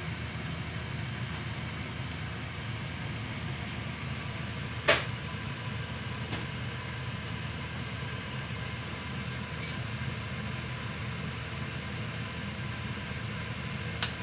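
Steady low hum of a kitchen blower fan over the bubbling of pork tocino boiling in a pan of foaming water. A sharp click about five seconds in and another near the end.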